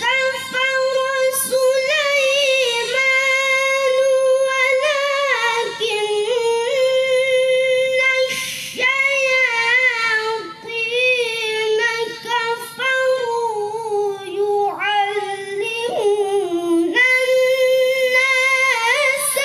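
A boy's high voice reciting the Qur'an in melodic tilawah style, holding long ornamented notes that waver and turn in pitch.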